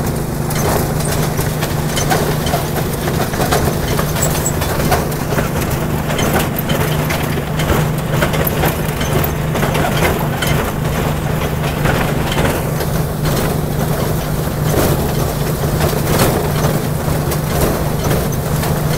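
Small ride-on backyard railroad train running along its track: a steady low drone with frequent irregular clicks and knocks from the running gear and cars.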